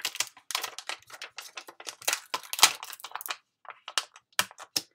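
Clear plastic stamp sheets being handled and sorted, with a quick irregular run of crinkly crackles and clicks.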